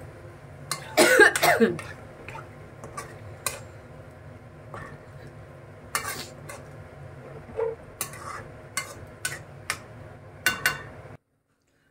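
Metal spoon stirring peas and masala gravy in a kadhai, with scattered clinks and scrapes against the pan and a louder clatter about a second in. The sound cuts off abruptly near the end.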